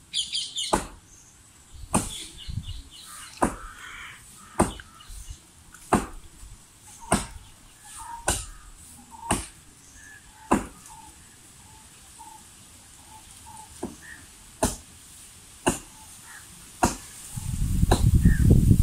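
Hand-chopping blows into a coconut palm trunk, sharp single strikes about one every second and a bit, pausing for a few seconds in the second half before three more. Birds chirp faintly between the strikes, and a loud low rumble comes in near the end.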